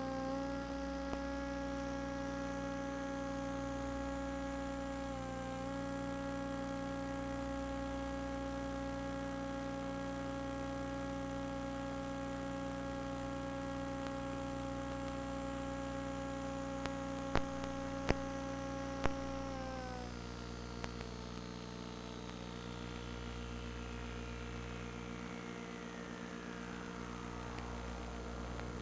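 FPV drone's electric motors and propellers buzzing at a steady pitch after rising briefly at the start. About two-thirds of the way through the pitch drops as the motors throttle down, and a high whine falls slowly. There are a few sharp clicks shortly before the drop.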